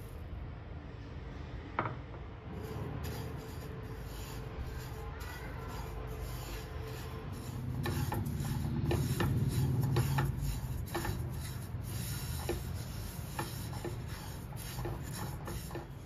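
Sesame seeds being stirred in a dry nonstick pan with a spatula: a run of scraping, rustling strokes, which grow busier and louder about halfway through.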